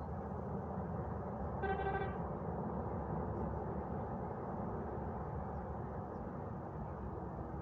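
Steady rush of wind and distant city traffic, with one short car horn honk about two seconds in.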